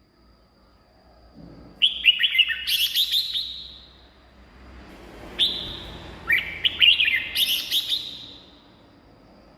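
Red-whiskered bulbul singing: two bright phrases of quick, warbled notes, the first about two seconds in and the second about five and a half seconds in.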